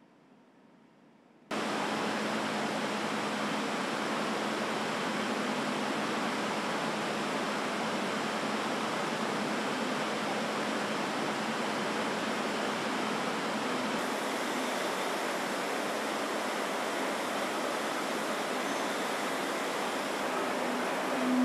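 Steady, even rushing noise of a paper machine running in its hall, cutting in abruptly about a second and a half in after near silence.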